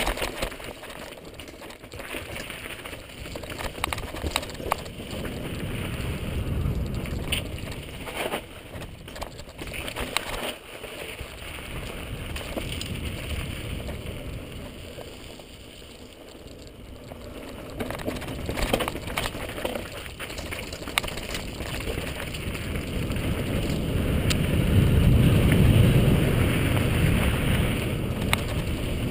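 Mountain bike descending a granite rock garden onto dirt singletrack: tyres rolling and skittering over rock and gravel, with frequent sharp clatters and knocks from the bike over the rocks. A low rushing rumble, wind on the bike-mounted microphone at speed, swells near the end.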